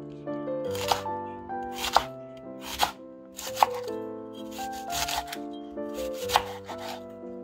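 Chef's knife shredding white cabbage on a wooden cutting board: a crunchy cut ending in a knock on the board, about once a second. Background music plays throughout.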